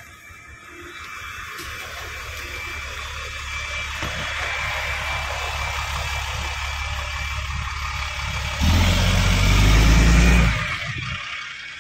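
Road traffic: cars passing on a multi-lane road as a steady rush that builds over the first few seconds. A much louder low rumble lasts about two seconds near the end.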